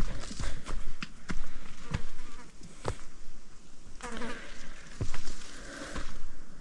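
Insect buzzing, with scattered sharp knocks or taps.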